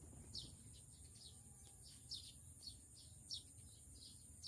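Faint bird chirping: short downward-sliding notes repeated about three times a second, over a steady high-pitched hiss.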